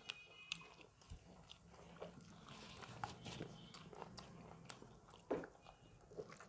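Faint eating sounds of fried chicken being bitten and chewed: soft chewing with scattered small clicks, and one louder click about five seconds in.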